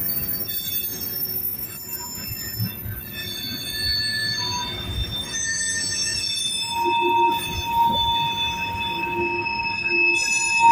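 Freight train of grain hopper cars rolling past, its steel wheels squealing against the rails in several high, shifting tones over a low rumble. A steady higher tone joins about two-thirds of the way through.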